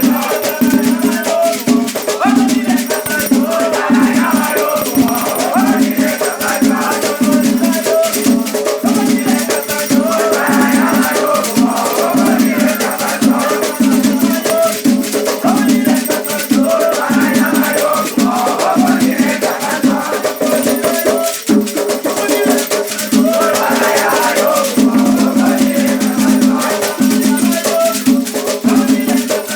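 Afro-Brazilian Batuque ritual music: drums and a rattle shaker keep a steady rhythm while voices sing.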